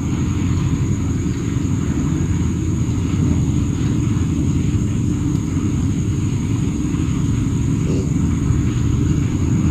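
Wind rumbling steadily on the microphone in an open field, with a faint steady high-pitched whine above it.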